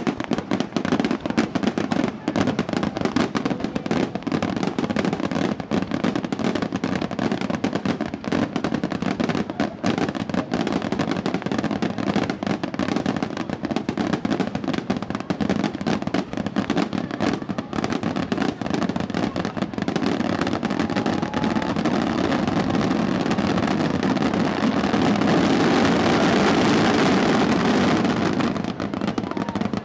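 Aerial fireworks going off in a dense, continuous barrage of bursts and crackling. The barrage builds to its loudest a few seconds before the end, then drops away suddenly.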